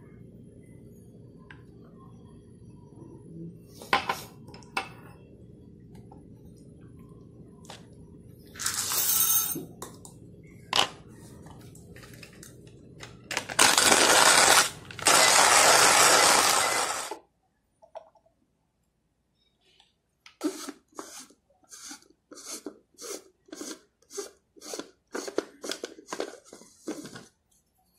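Coffee brewing gear being handled on a countertop: scattered clinks and knocks, a loud rushing noise that runs for about three and a half seconds midway, then a run of short, evenly spaced taps, about two a second, near the end.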